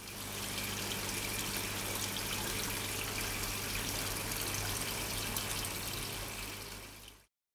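Water running and trickling in a tilapia tank, a steady rush with a faint low hum beneath it, fading out near the end.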